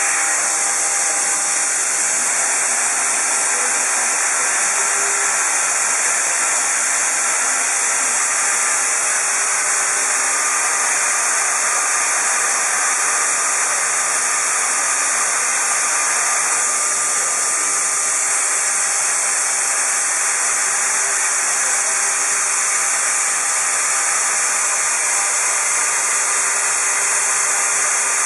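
Shoda NC router trimming a pressure-formed plastic keyboard cover: a steady, loud high hiss from the running spindle and cutting, with faint steady tones underneath.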